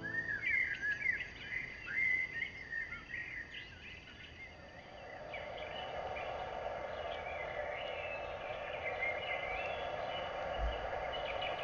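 Small birds chirping in quick, overlapping calls for the first four seconds, fading away as a steady, even noise rises and holds for the rest.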